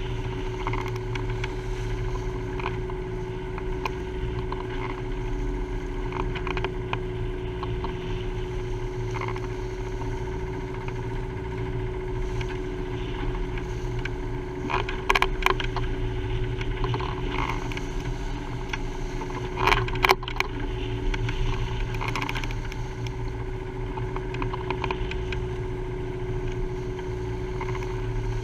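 Sailing yacht under way in a rough sea: a steady drone with a constant hum, over wind and water noise. A few sharp knocks sound around 15 and 20 seconds in.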